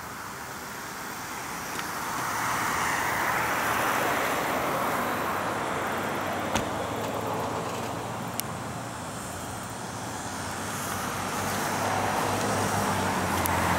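Road traffic: cars passing, the tyre and engine noise swelling twice and fading in between. A low engine hum comes in near the end, and there are two sharp clicks in the middle.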